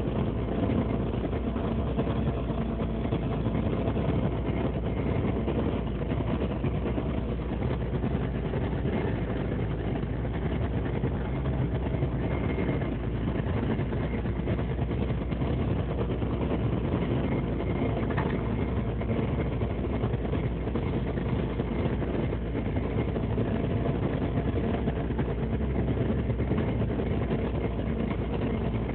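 A small fishing boat's engine running steadily, a constant low hum with no change in speed.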